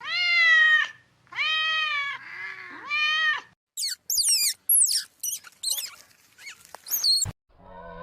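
A domestic cat meowing several times in drawn-out calls, one of them softer and lower. In the second half there is a run of short, very high, fast-gliding squeaks or chirps.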